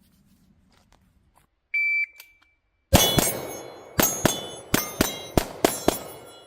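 A shot timer beeps once, then a handgun fires about nine shots in quick pairs (double taps), with steel targets ringing after the hits.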